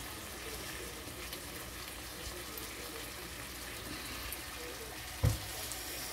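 Tempe, chillies and sweet soy sauce frying in a wok with a steady soft sizzle. One dull thump about five seconds in.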